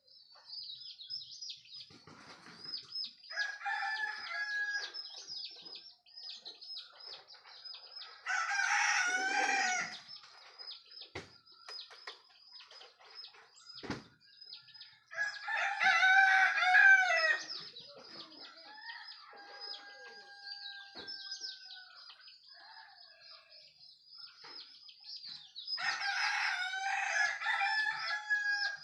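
Roosters crowing before daybreak: four loud, drawn-out crows about two seconds each, with a fainter, more distant crow in between. A steady high chirping runs underneath throughout.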